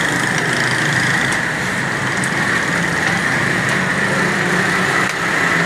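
A steady, loud mechanical drone like an idling engine, with a few faint clicks over it.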